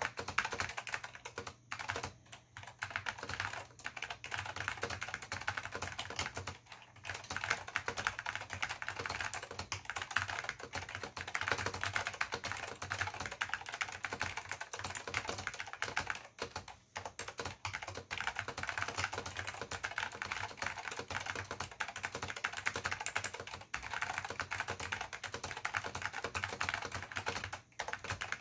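Fast, continuous typing on an Apple Extended Keyboard II with salmon Alps SKCM switches and Apple Alps keycaps: a dense stream of key clicks, broken by a few brief pauses.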